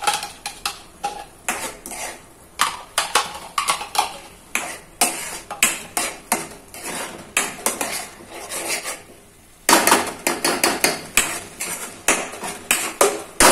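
A steel spoon scraping and clinking against a kadai as a thick onion-tomato masala is stirred, in quick repeated strokes, with a brief pause about nine seconds in.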